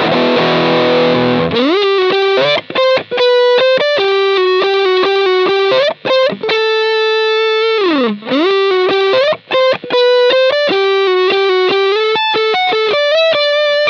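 Strat-style electric guitar played through a Sinvertek Drive N5 Plus distortion pedal, with its Top End (picking attack) switch set to P2, the high-frequency setting. A distorted chord rings for about a second and a half, then slides into a single-note lead line with bends and a long held note about halfway through.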